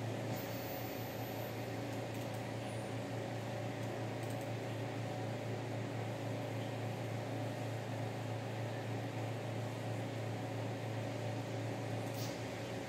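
Steady hum of a running pedestal fan, with a faint click now and then.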